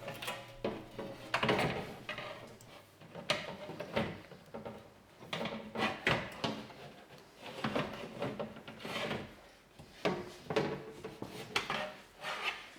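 Door window glass rubbing and scraping in uneven strokes against the door's run channels and seals as it is fed down into the door and onto the window regulator, with a few light knocks.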